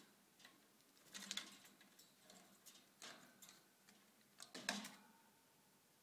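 Faint clicks and light rustles of things being handled at a budgie cage, in three small clusters: about a second in, around three seconds in, and just before five seconds.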